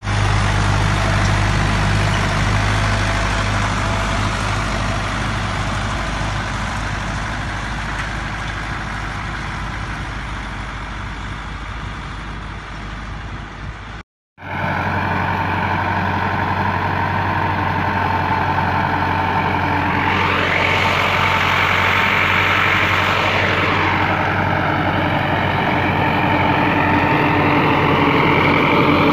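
HMT 5911 tractor's diesel engine running steadily under load while pulling field implements. About halfway through, the sound cuts out for a moment, then the engine continues. A higher whine rises and then falls a few seconds later.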